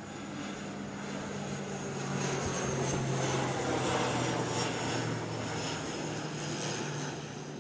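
Twin-turboprop military transport plane flying low overhead: a steady propeller drone under a high turbine whine, growing louder to a peak about halfway through and then fading as it passes, the whine dropping slightly in pitch.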